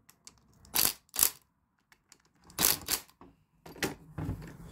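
Socket ratchet clicking in about four short bursts as a bolt on the VTEC solenoid and oil filter adapter housing is run down.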